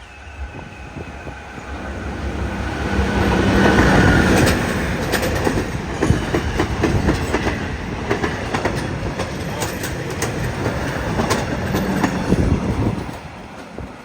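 State Railway of Thailand maintenance-of-way work train passing through the station. It grows louder to its peak about four seconds in, then its wheels clack over the rail joints and it fades about a second before the end.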